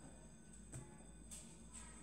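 Near silence: room tone with a faint steady high whine and low hum, and a few very faint soft rustles.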